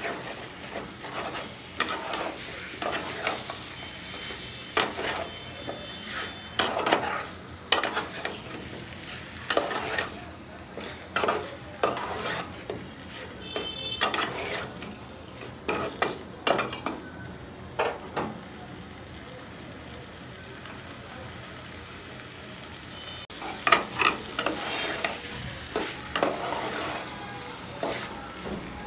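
Metal spatula scraping and knocking around an aluminium pot as a thick curry is stirred, over a steady sizzle of frying. The strokes come in irregular bursts and pause for several seconds about two-thirds in, leaving only the sizzle.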